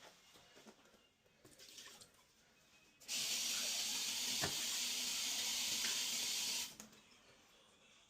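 A loud steady hiss, like fluid rushing through a valve, that starts abruptly about three seconds in and cuts off about three and a half seconds later, with a single click midway.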